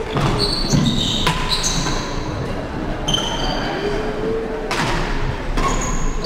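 Badminton rackets hitting a shuttlecock a few sharp times and sneakers squeaking in short high chirps on the wooden court floor, with a faint wavering hum under them.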